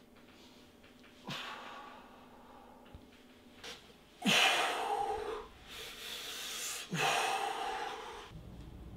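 A man breathing hard with effort: three forceful breaths blown out through pursed lips, a few seconds apart, the middle one loudest. It is the strain of pressing a barbell.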